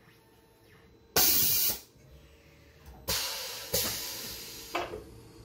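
Blasts of compressed air hissing from the Tormach 1100MX's pneumatic power drawbar during an automatic tool change: a short hiss about a second in, then a longer one around three seconds in that fades out, and a brief puff near the end. There is no popping or clicking as the drawbar lets go of the pull stud, the sign that the drawbar is no longer sticking now that the pull stud is coated in antiseize.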